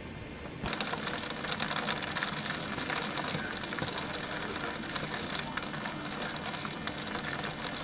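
Steady rain falling, a dense patter of many small drop clicks, cutting in abruptly less than a second in.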